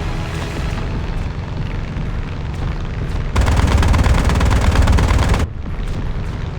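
Seaplane engine running at takeoff power during a run off the water. About three seconds in, a much louder stretch of rapid rattling pulses lasts about two seconds, then cuts off suddenly.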